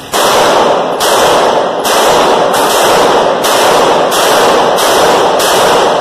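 A Polymer80 80%-lower pistol with a Gen 3 slide fires about eight shots in a steady string, a bit under a second apart. Each shot rings on in the reverberation of an indoor range. The gun cycles every round without a stoppage.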